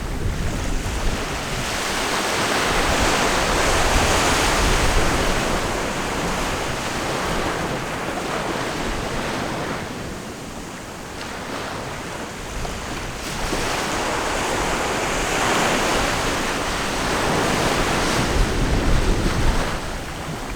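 Ocean waves breaking and washing in, the surf noise swelling twice and easing in between, with a low rumble of wind on the microphone.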